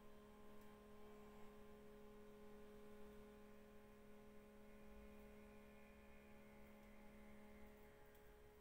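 Faint steady electric hum from the motor of a globe-shaped automatic self-cleaning litter box, its lowest tone dropping out briefly near the end.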